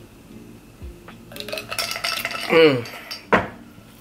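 Drinking from a glass of water: glass and swallowing noises, a short falling vocal sound after the drink, then a sharp knock just after three seconds as the glass is set down on the table.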